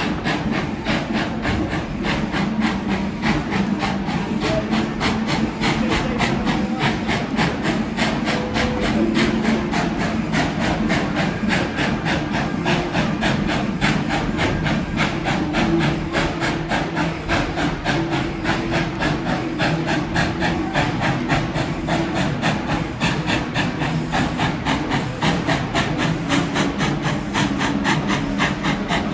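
Narrow-gauge steam train underway, heard from aboard: a steady, fast, even clatter of knocks from the running train.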